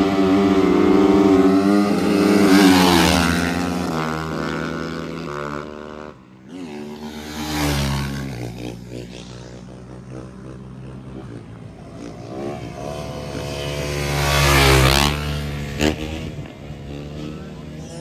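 Motorcycle engines running loud and passing close by, with engine pitch shifting as the riders ride around. The loudest passes come near the start, about eight seconds in, and about fifteen seconds in.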